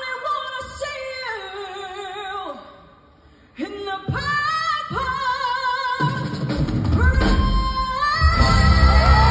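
Female vocalist singing live: long held, ornamented notes with vibrato, with a short break about three seconds in. The band's bass and drums swell in during the second half.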